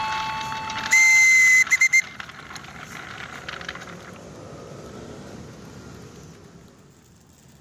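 The last notes of a station chime, then a loud high-pitched train whistle about a second in: one long blast followed by three quick short toots. After it, a running train's rumble fades away.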